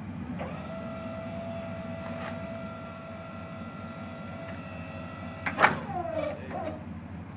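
Electric-hydraulic pump motor of a pickup-mounted wheel-lift tow unit running under button control, a steady whine that holds for about five seconds. It stops with a loud clunk near the end, and the whine falls away.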